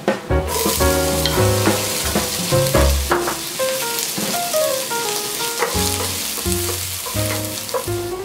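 Sliced garlic and chopped onion sizzling in hot oil in a frying pan, the sizzle starting about half a second in. Melodic background music plays along with it.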